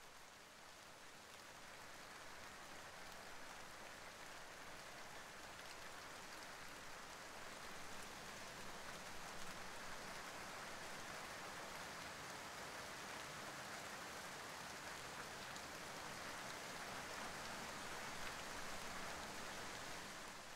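Faint, steady hiss of rain falling, swelling gently over the first few seconds and then holding even.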